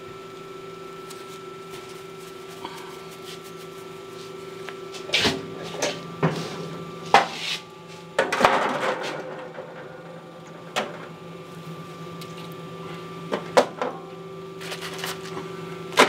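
Metal clunks and clicks from a smoker's door and grates being handled, with an aluminium foil pan rattling and crinkling about eight seconds in, over a steady hum.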